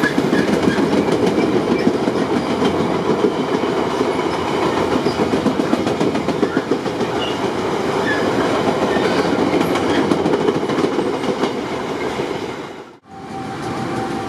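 Freight train of double-deck car-carrier wagons rolling past at close range, its wheels clattering steadily over the rails with a few brief high squeaks. About a second before the end the sound breaks off and gives way to a quieter steady hum.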